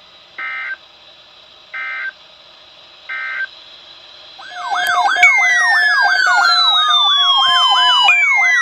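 Three short bursts of Emergency Alert System end-of-message data tones, a harsh two-tone digital screech about a second apart, closing the thunderstorm watch alert. About four and a half seconds in, a much louder electronic siren starts: a fast yelp of about three sweeps a second, with slower falling wails over it.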